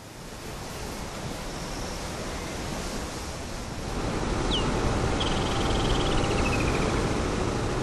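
Steady rushing outdoor wind noise that grows louder about four seconds in, with a bird's short rising chirp and then a quick trill that slides down in pitch.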